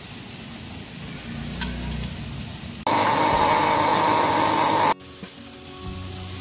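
Electric grinder motor running for about two seconds as it blends a green chutney of mint, coriander, chillies, garlic and yoghurt in a glass jar. It starts and cuts off abruptly, and is the loudest sound. Fainter frying sizzle before and after it.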